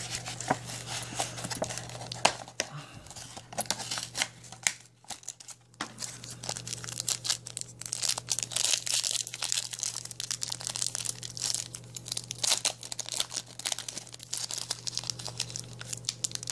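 Foil wrapper of a Yu-Gi-Oh! Abyss Rising booster pack crinkling and tearing as it is opened by hand. There is a short pause about five seconds in, and the crinkling is thickest around the middle.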